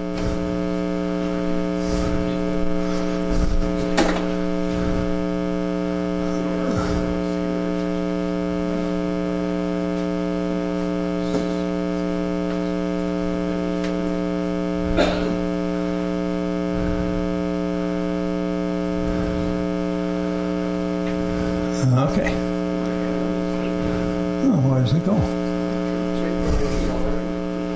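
Steady electrical mains hum, a loud buzz made of several fixed tones that do not change. A few faint, brief sounds come through it now and then.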